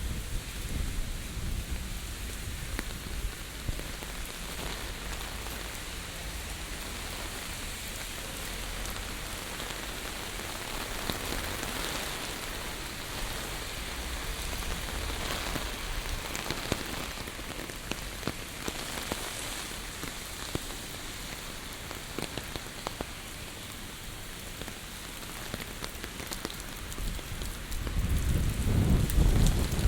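Heavy typhoon rain pattering steadily on surfaces, a dense hiss of many small drops. Near the end a strong gust of wind buffets in as a low rumble.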